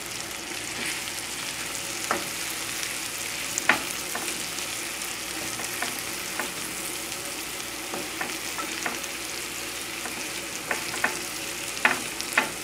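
Flour-coated chicken pieces and mushrooms sizzling in butter in a skillet as they are stirred, with a few sharp clicks.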